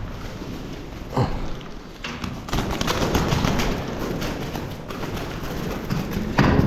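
Many feral pigeons flapping their wings in a rapid clatter, with a couple of sharper thumps about a second in and near the end.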